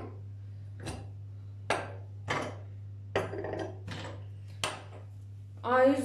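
Metal burner caps of a gas hob being lifted off and set down: a string of about seven sharp clinks and clacks, each brief.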